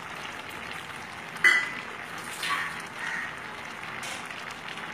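Thick pea dal with vegetables simmering in a pan with a steady low sizzle and bubbling. A spoon clinks sharply against the pan about one and a half seconds in as ginger paste is added, with a couple of lighter knocks after.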